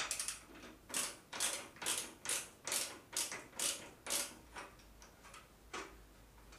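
Ratchet head of a torque wrench clicking in a steady rhythm, about two or three strokes a second, as it is swung back and forth to run off the loosened motorcycle rear axle nut. The clicking stops after about four seconds, with one faint click near the end.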